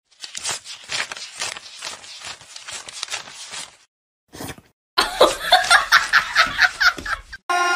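Paper banknotes flicked one after another as they are counted by hand: a quick run of crisp snaps for several seconds. After a short pause comes a louder, choppy burst of laughter.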